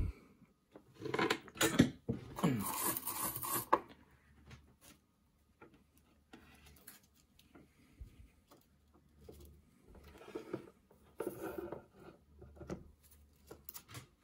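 Hands working a cloth-covered pickup wire into a small circuit-board switch tab on a guitar pickguard: a few seconds of rustling and scraping, then faint scattered small clicks and rubs.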